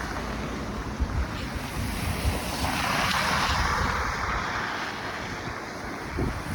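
Wind buffeting the microphone in a snowstorm, with a rushing hiss that swells and fades about three seconds in.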